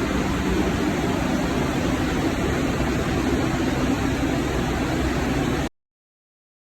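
Steady rumble and hiss of a subway train running. It cuts off abruptly a little before the end.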